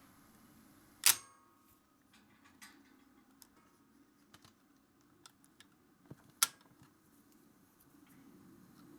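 Two sharp mechanical clicks, about five seconds apart, the first with a short metallic ring; lighter ticks and taps fall between them.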